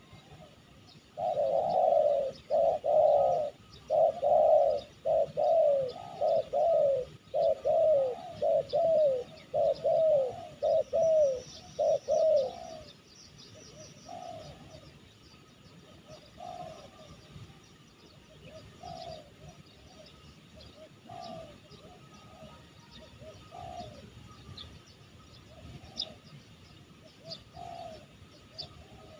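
Spotted dove cooing: a loud, quick run of about a dozen falling coo notes lasting roughly ten seconds, followed by a slower run of fainter coos every second or two. Small birds chirp faintly in the background.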